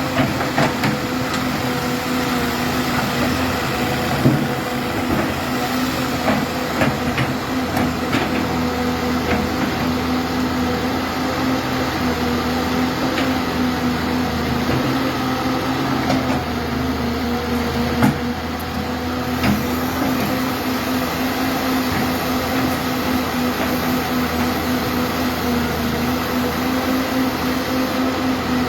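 Caterpillar 200B excavator's diesel engine running steadily while it digs mud, with a few sharp knocks, the loudest about four seconds in and near 18 seconds.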